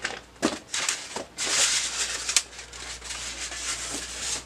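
Cardboard box and styrofoam packing being handled and slid away: rustling and scraping with a few sharp knocks, the longest rustle about a second and a half in.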